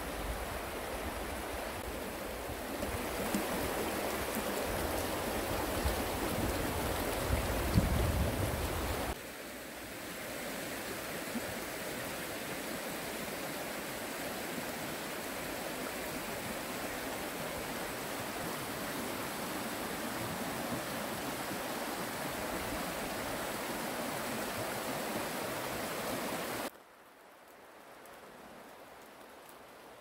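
A shallow stream running over a stony bed, a steady rush of water. Before it, for the first nine seconds or so, comes a louder, gusty noise with a low rumble. Near the end it drops abruptly to a quieter hiss of light rain.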